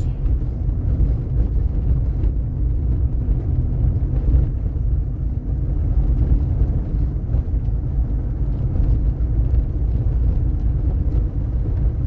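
Steady low rumble of a car driving slowly on a concrete-paver street, its engine and tyre noise heard from inside the cabin.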